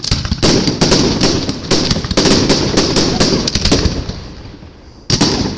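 Fireworks going off: a rapid, dense run of bangs and crackles that thins out and fades about four seconds in, then a loud bang just after five seconds.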